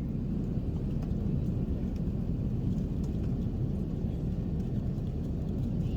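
Steady low rumble with a fainter hiss: Airbus A380 cabin noise from the engines and airflow, with a few faint ticks.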